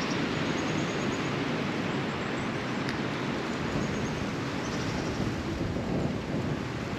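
Steady rush of water pouring from a drain outflow into a small creek, with faint bird chirps a few times.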